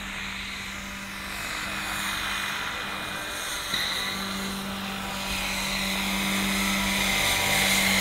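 Electric-powered Vario SA-341/342 Gazelle scale model helicopter with a 2.36 m rotor, flying low. Its rotor and motor make a steady whirring hum that grows louder as it comes closer.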